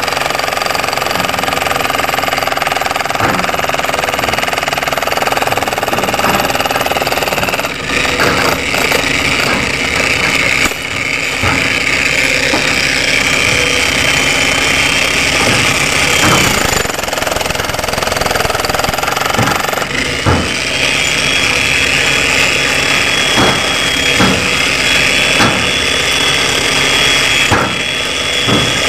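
Handheld jackhammer chipping hard concrete off the top of a reinforced-concrete bridge pier, hammering continuously with a few brief let-ups as it is repositioned.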